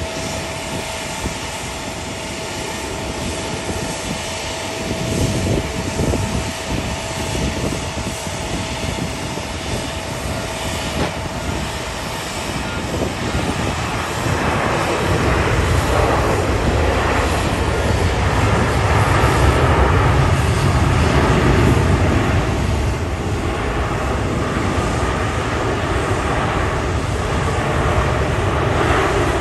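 Jet engine noise from a Lufthansa Boeing 747-8's four GEnx turbofans as the jumbo jet lands and rolls out. It swells about halfway through, with a deep low rumble, and peaks a few seconds later.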